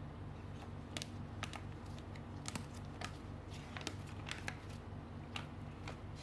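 Irregular small clicks and short crinkles, like packaging and plastic parts being handled, over a steady low hum with a soft even pulse.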